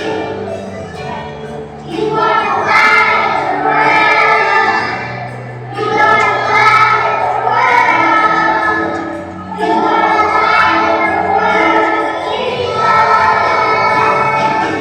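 Choir of three- and four-year-old children singing a Christmas song in phrases of a few seconds, with a lower accompaniment holding long steady notes underneath.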